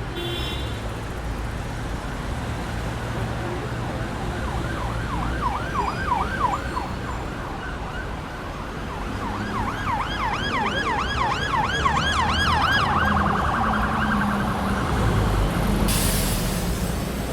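Emergency vehicle siren in a fast yelp, its pitch sweeping up and down about five times a second in two spells, over a steady low traffic rumble. A short rush of hiss comes near the end.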